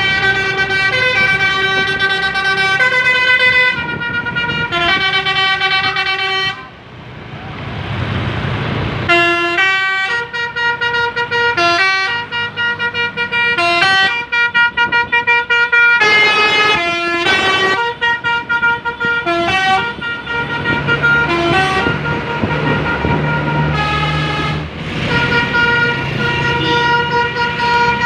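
A tour bus's telolet musical horn playing a tune of stepping notes. It pauses about a third of the way in while a hiss sounds, then goes on in quick, short repeated notes.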